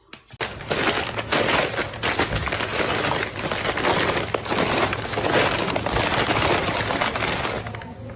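Hair dryer running on high, a loud rush of blown air over a steady motor hum, switching on about half a second in.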